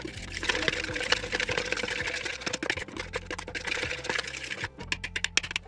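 Pancake batter being mixed by hand in a bowl: fast, dense clicking and scraping of the utensil against the bowl, thinning out to a few separate clicks near the end.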